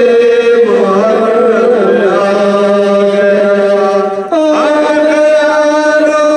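Male voice chanting a noha, a Muharram lament, in long drawn-out held notes. Near the middle there is a short break, and then the voice comes back on a higher held note.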